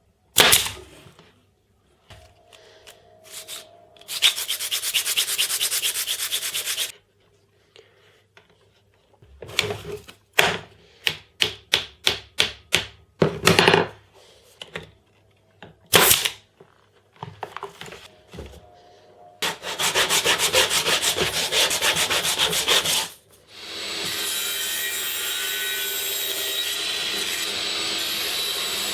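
Woodworking on wood: a sharp knock, then stretches of continuous rubbing or cutting on wood, a run of about nine short strokes, another knock, and near the end a power tool running steadily.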